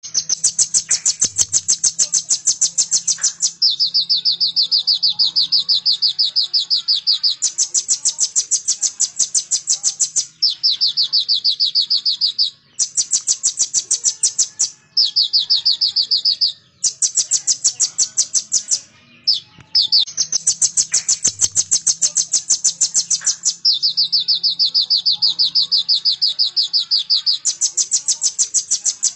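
Sunbird singing a loud, very fast, high trill in phrases of a few seconds. The phrases switch back and forth between a higher and a slightly lower pitch, with brief pauses between some of them.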